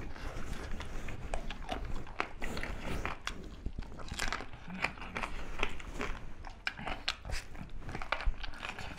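Two men biting and chewing chicken drumsticks and rice eaten by hand, heard close up as irregular wet chewing and short clicks.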